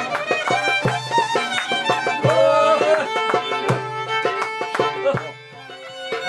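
Live Greek folk music: a violin playing a melody over drum strokes. The music drops back briefly near the end, then picks up again.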